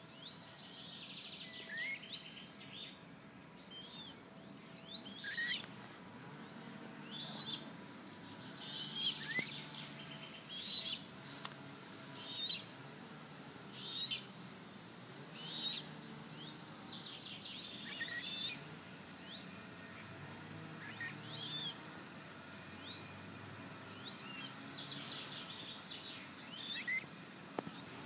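Eurasian coot chick calling: repeated thin, high peeps, each sliding down in pitch, about one every second or two. One sharp click about eleven seconds in.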